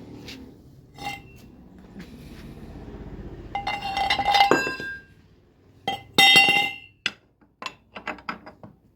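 Metal parts clinking and clanking as they are handled. There are two louder ringing metallic clangs, about four and six seconds in, followed by a run of light clinks.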